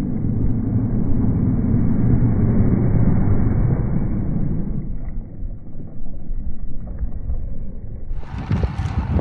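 Wind buffeting the microphone and tyre rumble from a road bicycle rolling on tarmac: a steady low rumbling noise that eases about five seconds in.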